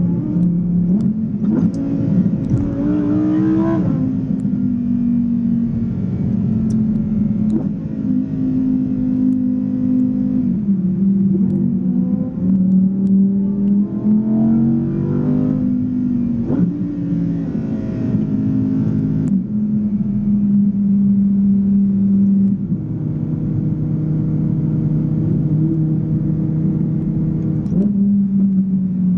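Lamborghini Huracán Evo's naturally aspirated V10, heard from inside the cabin, pulling up through the revs several times with sudden breaks at each gear change, then running steadily near the end.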